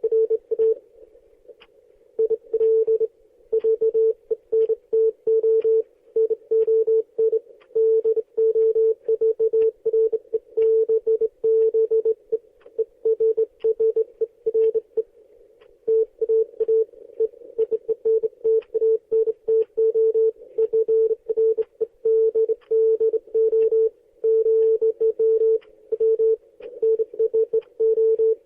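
Morse code tone: a single mid-pitched beep keyed on and off in quick dots and longer dashes, with short gaps between letters and words.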